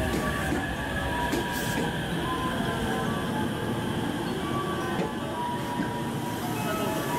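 JR West 225-series electric train moving slowly along the platform, a steady low rumble with short high squealing tones that come and go; the rumble drops away after about five seconds.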